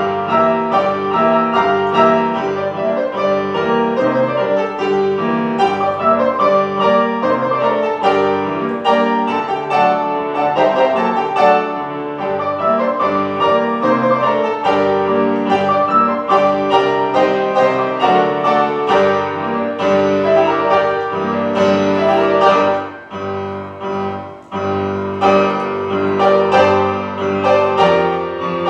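Grand piano playing a Christmas medley, with many notes at once and a brief softer passage about four-fifths of the way through.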